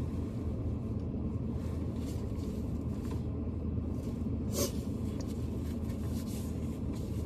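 Steady low hum of a parked car's idling engine heard inside the cabin, with hands rubbing together and a short breath blown into cupped hands about four and a half seconds in.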